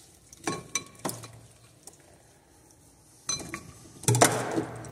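Brush clinking and scraping against a glass mixing bowl as the neutralizing formula is stirred: a few ringing clinks about half a second and a second in, then a louder cluster of clinks and scraping near the end.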